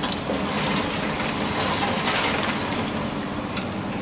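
Komatsu excavator's diesel engine running steadily while its demolition grapple crunches and breaks apart a concrete-block wall, with broken block clattering down; the crunching is heaviest about two seconds in.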